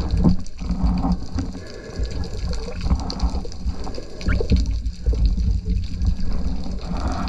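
Water sloshing and gurgling around the camera: an uneven, low wash of moving water with brief warbling tones.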